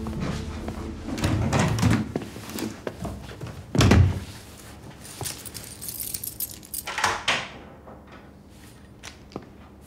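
Handling noises: low thumps about a second in and a louder thump about four seconds in, then rustling and light clinks as things are moved about, like a door and objects being handled.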